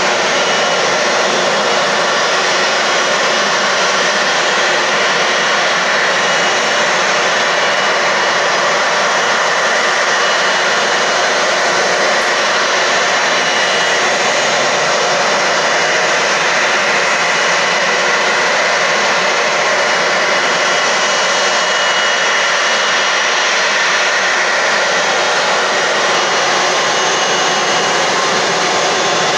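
Jet engines of an Airbus A330-243, Rolls-Royce Trent 700 turbofans, running steadily: a loud, even jet rush with a faint whine that holds level throughout.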